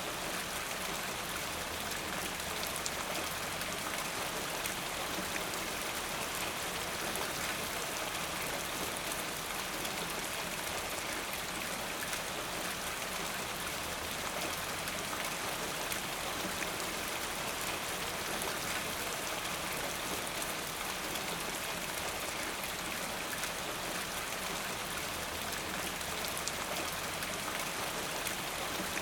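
Steady rainfall: a dense, even hiss of raindrops with many fine drop ticks, unchanging in level.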